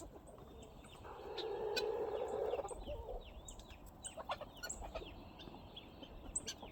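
Guinea fowl and chickens calling: a harsh rattling chatter starts about a second in and lasts about two seconds, amid many short scattered chirps.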